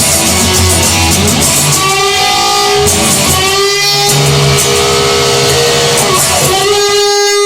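Rock music led by electric guitar, with bass and drums, in an instrumental passage; a guitar note bends and sustains partway through.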